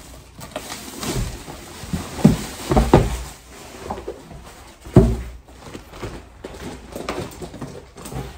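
Handling noise as laundry baskets are unpacked and set down: rustling with several dull thumps and knocks, the loudest about five seconds in.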